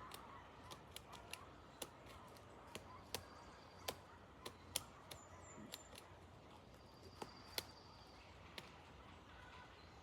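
Woodpecker chiselling into a log: sharp, irregular knocks of its bill striking wood, one or two a second, unevenly spaced rather than a drumming roll.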